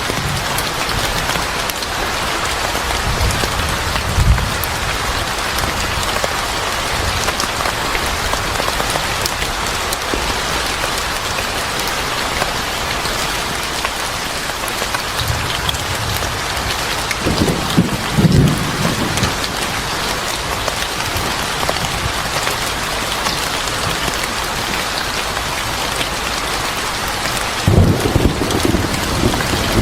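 Steady heavy rain hissing on a surface. Low rumbles swell up a few times, most strongly about two-thirds of the way through and near the end.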